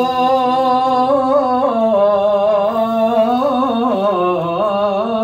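A man's unaccompanied voice holding one long melismatic vowel of sung 'ataba poetry, its pitch wavering and stepping through ornaments without a break.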